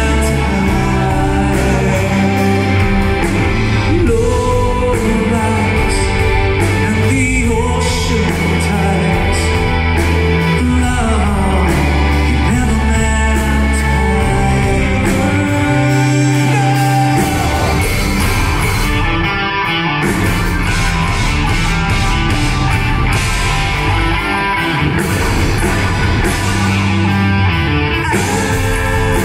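Progressive rock band playing live in a concert hall: a lead singer over electric guitars, bass, drums, keyboards and violin. Heard from the audience seats.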